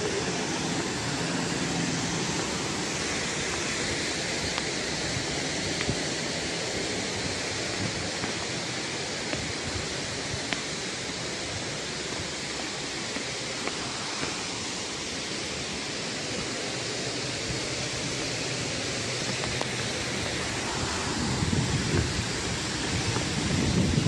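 Steady rushing of a waterfall's falling water, heard from along the path approaching it. About three seconds before the end, uneven low buffeting of wind on the microphone joins in.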